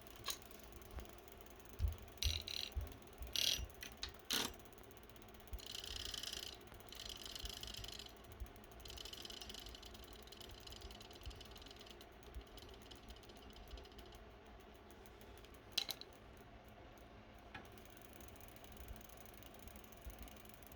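Mechanical work on a motorized bike's rear sprocket. Several clicks and knocks come first, then three spells of whirring, ratcheting sound of a few seconds each, and one sharp click near the end.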